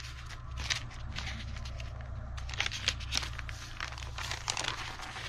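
Sheets of journal paper rustling and crinkling as they are handled and stacked into a signature, in an irregular run of short rustles and soft taps over a steady low hum.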